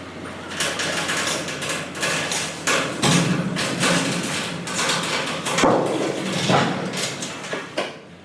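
Hammer blows struck in a quick, irregular series throughout, over a steady low hum for the first few seconds.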